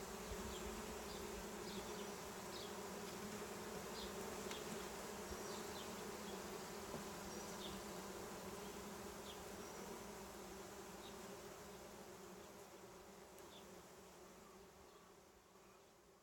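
A colony of honeybees buzzing in an opened hive, a steady droning hum of many wings, described as getting louder and louder as the colony is disturbed by the inspection. The hum fades gradually over the last several seconds.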